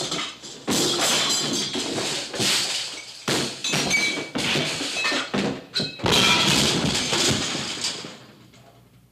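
Cartoon slapstick sound effects: a rapid run of thuds, thumps and crashes, as of a character tumbling and smashing down, over music. The racket dies away about eight seconds in.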